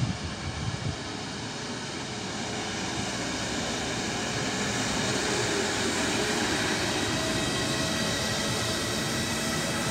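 Siemens Vectron electric locomotive running light, with no train behind it, growing steadily louder as it approaches and passes: the rush of wheels on rail with a steady high whine over it. Wind buffets the microphone briefly at the start.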